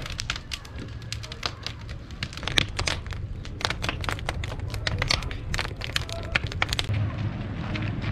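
Wood fire under a large cooking pot, crackling with many sharp, irregular pops and cracks over a low steady rumble. The crackling drops away about seven seconds in.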